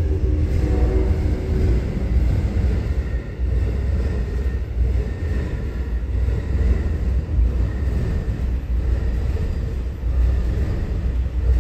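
Amtrak 91 passenger train rolling past, heard through the walls and windows of the station building as a steady low rumble.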